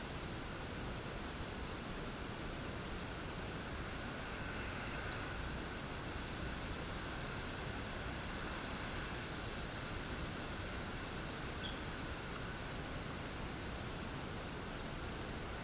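Steady hiss of light rain falling on foliage and a yard, with a continuous high-pitched insect trill, like crickets, running through it.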